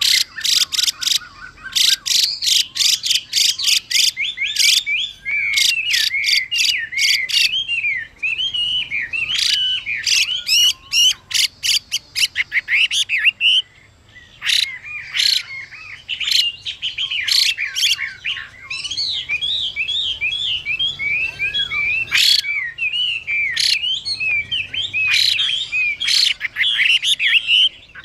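Chinese hwamei (Garrulax canorus) calling: runs of rapid, harsh rasping notes, the female's 'xùy' calls used to excite male birds, alternating and overlapping with a male's loud, varied whistled song. The harsh runs come at the start, again about a third of the way in and in short bursts later, while the whistled phrases fill most of the middle and end.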